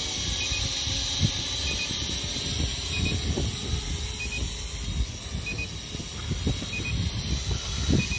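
Wind buffeting the microphone in irregular low rumbles, over a steady high hiss. A short double beep repeats about once a second.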